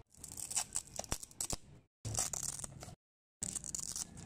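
A hook-and-loop (Velcro) strap being peeled open on a bicycle frame tube: a rasping tearing noise with a couple of sharp clicks, broken into short pieces by abrupt cuts to silence.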